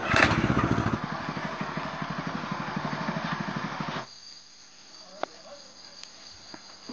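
Small single-cylinder petrol engine of a mini tiller catching on a pull and running with a fast, even putter, stopping abruptly about four seconds in. After it, steady cricket chirping.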